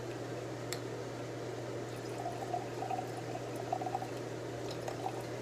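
Smirnoff Ice Red, White & Berry poured into a cup of ice, a steady pouring noise over a constant low hum.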